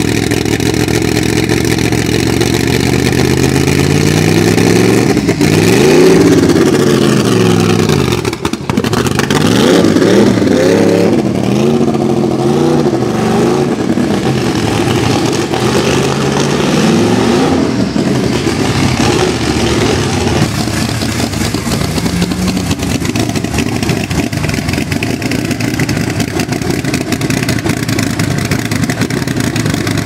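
Sauber-Mercedes C9's twin-turbo V8 revved up and down by the throttle several times in the first two-thirds, with one big rise and fall about five to seven seconds in and a run of quick blips after it, then settling to a steady idle over the last third.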